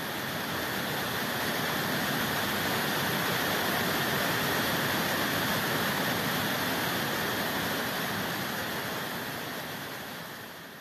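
Rushing water of a mountain stream cascading over rocks and a small waterfall: a steady, even rush that fades out near the end.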